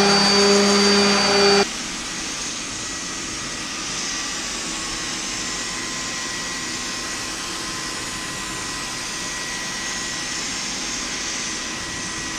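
Electric orbital sander running on a cabinet door, a steady whine with a high whistle, which cuts off abruptly about a second and a half in. After that, a gravity-feed paint spray gun on an air hose hissing steadily as it sprays a coat of finish onto the doors.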